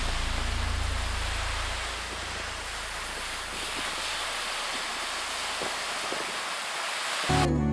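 Surf washing onto a sandy beach, a steady hiss of breaking waves with a low rumble that fades away. Acoustic guitar music starts abruptly just before the end.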